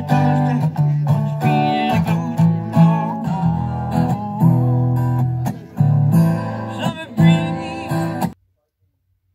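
Background music led by a strummed acoustic guitar, cutting off suddenly about eight seconds in.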